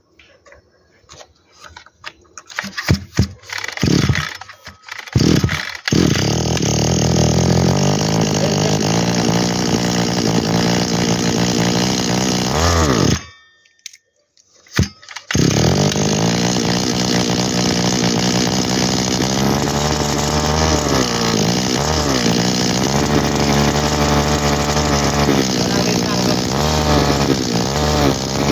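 Komatsu 26 cc two-stroke engine being pull-started: a few sputtering firings, then it catches about six seconds in and runs. It dies about thirteen seconds in, fires once, restarts and runs on with its speed wavering. The seller reckons the carburettor needs a slight adjustment because it runs short of fuel.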